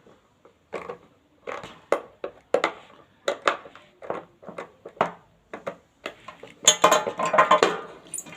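Hard plastic clicks and knocks from handling the reassembled electric blender, with a louder, denser clatter near the end.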